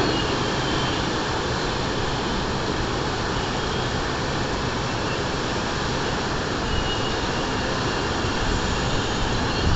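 Strong wind blowing, a steady rushing noise without let-up.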